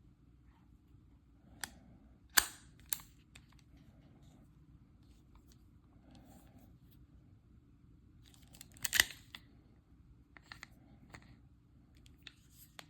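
Scattered sharp mechanical clicks from a handgun being handled, with the loudest cluster about nine seconds in.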